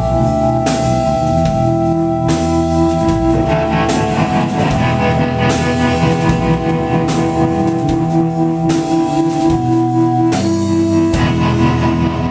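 Live rock band playing: electric guitars, bass, drum kit and keyboards holding loud sustained chords, with a sharp accent about every second and a half.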